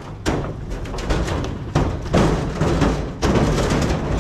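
Cattle hooves thumping and clattering on the loading ramp and the floor of a livestock trailer as steers are driven aboard, in a dense run of irregular knocks with louder surges about a third of a second in, near two seconds and just after three seconds.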